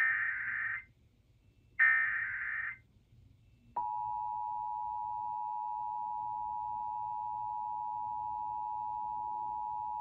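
Emergency Alert System broadcast tones for a Required Monthly Test. Two one-second bursts of the SAME digital header data play about a second apart, ending the three-burst header. About four seconds in, the steady EAS two-tone attention signal (853 and 960 Hz) starts and holds.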